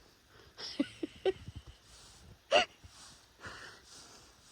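A woman's brief gasps and breathy exclamations, a few short ones in the first second or so and a sharper one about two and a half seconds in, with soft rustling between them.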